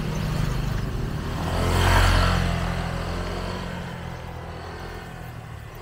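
A motor vehicle's engine passing close by: it grows louder to a peak about two seconds in, then fades steadily as it moves away.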